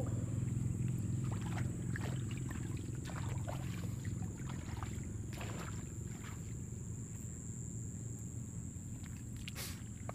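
A small motor running with a steady low hum and a thin high whine above it, with scattered light clicks and squelches from wet mud.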